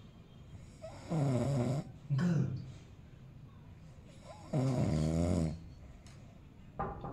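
A man snoring: a series of loud snores, each half a second to a second long, with quieter pauses between them and a longer snore a little after the middle.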